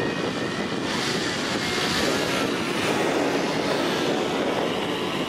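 Propeller engine of a small single-engine aerobatic plane running as it flies overhead, its sound swelling and brightening about a second in as it passes.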